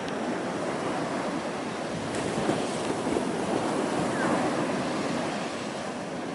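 Ocean surf from a hurricane swell breaking and washing in, a steady wash of noise that swells a little louder midway, with wind on the microphone.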